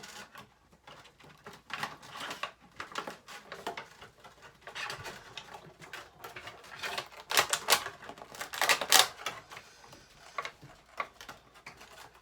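Plastic toy packaging crackling and clicking in irregular bursts as an action figure is worked free of its tight tray, loudest for a couple of seconds about seven seconds in.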